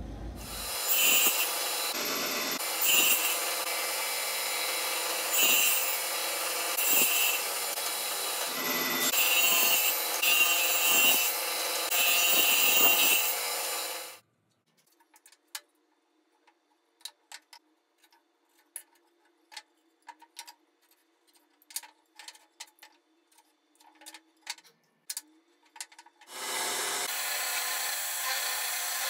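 A table saw runs steadily while cutting wood for about fourteen seconds and then stops. Faint scattered scratches and taps follow. About 26 seconds in, an electric drill with a 12 mm bit starts boring a hole into a wooden leg.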